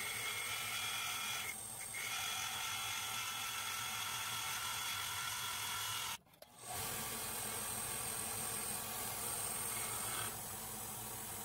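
Belt grinder running with a steel knife blade held against its 50-grit abrasive belt, grinding the bevels steadily. The sound cuts out briefly about six seconds in.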